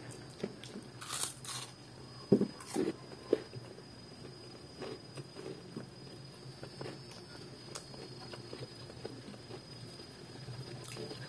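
Close-up eating sounds: chewing and lip-smacking on rice, jackfruit stew and fried salted fish eaten by hand, with a few louder smacks between about two and three and a half seconds in, then quieter chewing.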